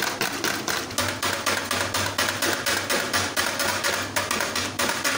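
A wire hand whisk beating eggs in a bowl with fast, steady strokes, about six a second, clicking and scraping against the bowl as the eggs are whipped to a froth.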